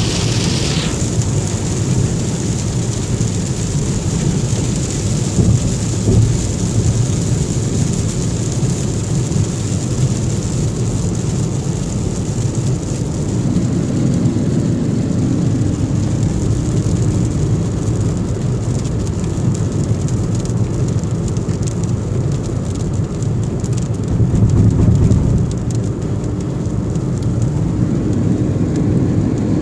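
Heavy rain pouring steadily in a downpour, with a deep continuous rumble underneath.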